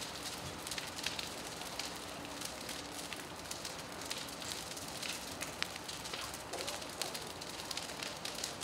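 Fully involved house fire burning: a steady rushing of flames with many short, sharp crackles and pops scattered throughout.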